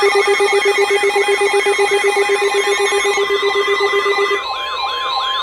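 Emergency Alert System alarm on NOAA Weather Radio, sounding for a severe thunderstorm warning. Overlapping alert tones: a warbling, siren-like sweep repeating about three times a second over a steady high tone, with a fast-pulsing low beep and a second steady tone that cut off about four and a half seconds in.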